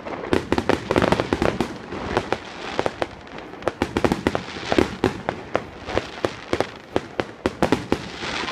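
Fireworks display: aerial shells bursting one after another, a rapid, irregular string of sharp bangs several times a second.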